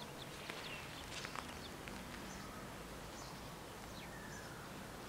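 Quiet outdoor ambience with scattered short bird chirps and a few faint clicks.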